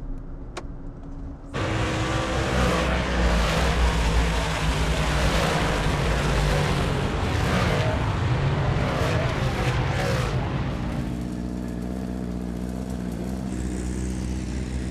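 Race car engines running hard at high revs, with rising and falling pitch as they pass. The sound cuts in suddenly about a second and a half in and eases to a lower, steady hum near the end.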